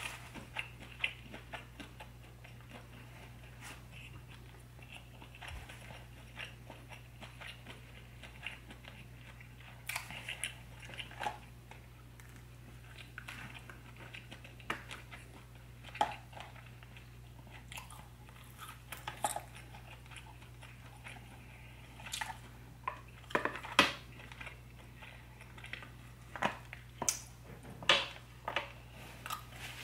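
Close-miked chewing of sauce-coated king crab and lobster meat, with mouth sounds and fingers handling the shells and meat. Irregular short clicks and smacks grow busier and louder in the last several seconds, over a steady low hum.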